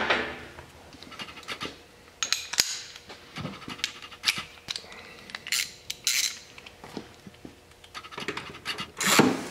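Hand tools being worked under an ATV: scattered scrapes and light metallic clicks of a wrench against metal parts, with a quick run of clicks near the end.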